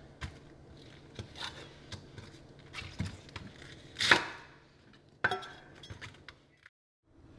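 Chef's knife slicing through raw cabbage onto a wooden cutting board: irregular knocks of the blade on the board, the loudest about four seconds in.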